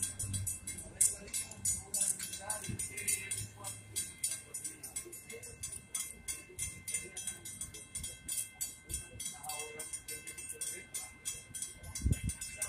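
Railroad grade-crossing warning bell ringing with rapid, even strikes while the crossing signals flash.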